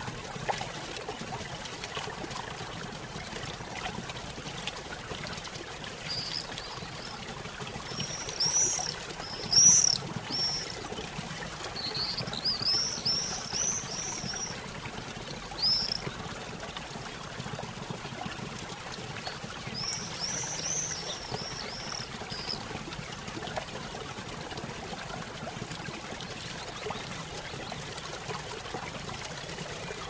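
Steady rush of falling water from a waterfall, with a small bird chirping in quick runs of short high notes from about six seconds in until sixteen, and again briefly around twenty seconds.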